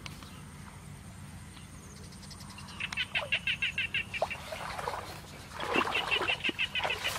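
Two rapid, chattering animal trills, each lasting about a second at roughly ten pulses a second: one about three seconds in and another about six seconds in, over a steady low hum.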